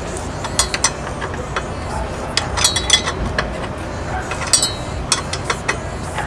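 Steel spanner clicking and clinking against a clutch master cylinder mounting bolt as the bolt is worked round in small moves: irregular sharp metal clicks, with brighter metallic rings about two and a half and four and a half seconds in.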